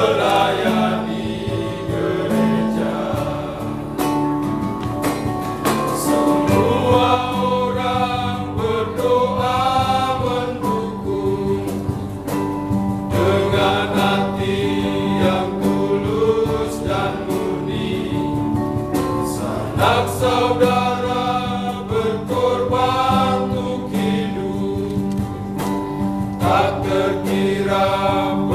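Men's choir singing a hymn together in long phrases, with short breaks between phrases.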